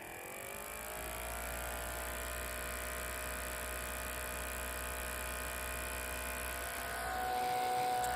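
Homemade chopper siren spinning up: its pitch rises over about the first second and a half, then it holds a steady tone that isn't high-pitched. The tone swells slightly louder and higher near the end.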